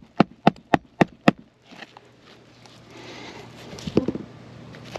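A hammer driving a roofing nail into an asphalt shingle: a quick, even run of about six strikes, three to four a second, ending about a second in, then quiet handling and one light knock near the end. The nail is going into an old, brittle shingle that will not hold it.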